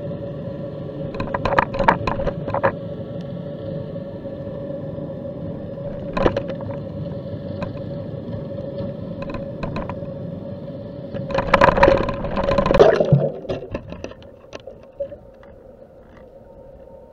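Sound picked up by a submerged underwater camera: a steady hum over a bed of water noise, with scattered knocks and a loud rough scraping rumble about eleven seconds in, after which it goes quieter.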